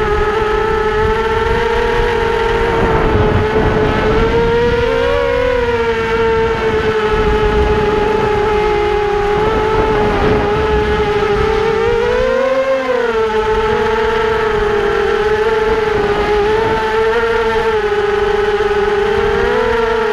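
Motor and propeller of a small low-flying aircraft running steadily as a pitched drone, its pitch rising briefly twice, about 5 and 12 seconds in. Wind rumbles on the microphone underneath.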